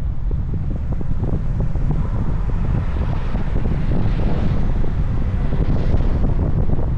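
Wind buffeting the microphone of a moving car, over a steady low rumble of road and engine noise. The rush of wind grows a little stronger about three seconds in.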